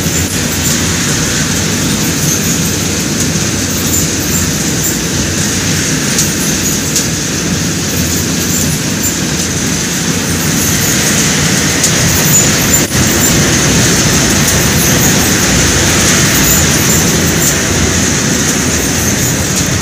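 High-capacity hot air popcorn machine running: a steady, loud mechanical rumble with a hiss.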